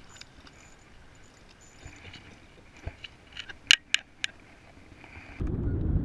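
Low background hiss, then a quick run of sharp little clicks and ticks about three and a half to four seconds in, from hands handling a small fishing rod, reel and lure.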